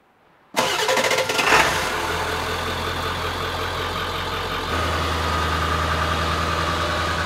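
A Ford F-350 Super Duty's turbodiesel V8 starting up, a brief rev flare as it catches, then settling into a steady idle.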